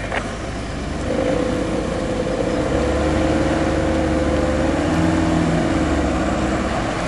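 Land Rover four-wheel-drive engines working under load as a stuck vehicle is towed out of deep water on a strap. The engine note builds about a second in, rises slightly, gets deeper and stronger from about three to six seconds in, then eases off.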